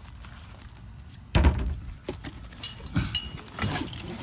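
Metal trampoline parts clinking and knocking together as they are handled in their box, with one heavier knock about a second and a half in and several lighter clinks after it.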